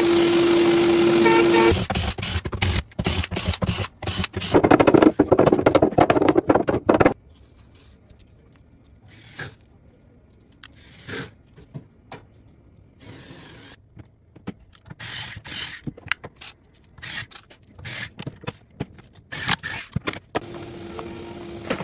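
A CNC router spindle running with a steady tone that cuts off after about two seconds, followed by several seconds of loud, irregular noise. Then a long, much quieter stretch of scattered scraping and clicks as a hand deburring tool trims the cut edge of a golf-ball half. Near the end a steady machine hum starts.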